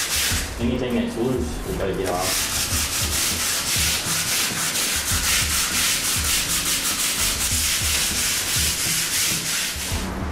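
Hand sanding block scrubbed back and forth with sandpaper over painted drywall, cleaning up the ragged edges of peeled wallpaper before a skim coat. A fast run of rasping strokes, with a short lull about half a second in.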